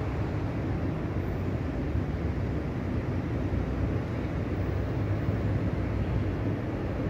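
Steady low rumble of city background noise, the hum of distant traffic and building machinery across a dense high-rise estate.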